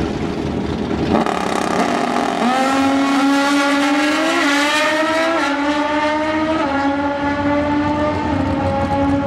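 Drag-racing motorcycles launching off the line about two and a half seconds in and accelerating hard down the strip. The engine note climbs and drops back at each gear shift.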